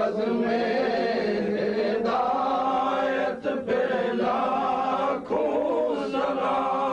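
Male voices singing a slow devotional chant in long held notes that waver gently in pitch, broken briefly twice, about three and a half and five seconds in.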